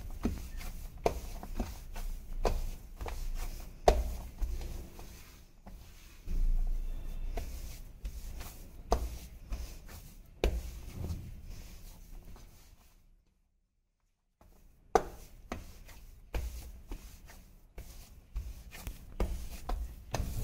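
Hands kneading maize-flour and fenugreek dough in a stainless steel plate, mashing it by hand to make it smooth: irregular thumps and rubbing of the dough against the steel. The sound stops for about a second a little past the middle.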